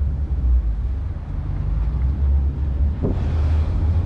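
Outboard engines of a 42-foot Yellowfin center-console boat running at low speed: a steady low rumble.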